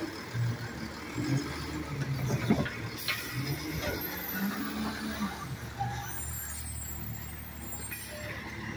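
Automated side-loader garbage truck running, its hydraulic lifting arm tipping and lowering a trash cart, with a few clanks as the cart is shaken out and set down. A hiss of air brakes follows about six seconds in, as the truck pulls away.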